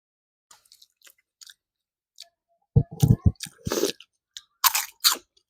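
Close-miked eating: a person chewing and biting a mouthful, with faint soft mouth clicks at first, then loud, irregular wet chewing from about halfway through.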